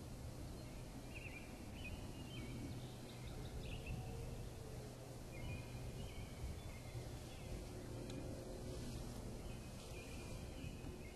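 Quiet field ambience: distant songbirds sing short phrases every few seconds over a low steady hum, with a few faint ticks near the end.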